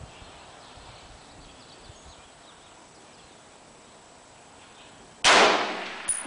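A single rifle shot from an M1 Garand about five seconds in: a sudden loud crack with a short echoing tail. Under a second later comes a brief high metallic ring.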